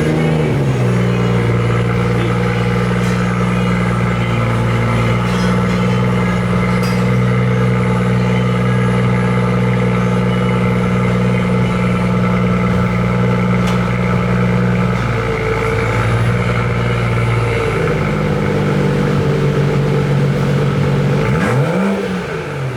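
BMW 340i's turbocharged inline-six with both exhaust resonators deleted, running at a steady engine speed with a steady droning exhaust note. The note shifts slightly about two-thirds of the way in, and the revs sweep up and down near the end.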